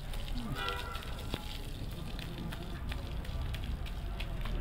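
Water from a garden hose splashing onto a soaked rug, a steady crackling patter of spray and drops.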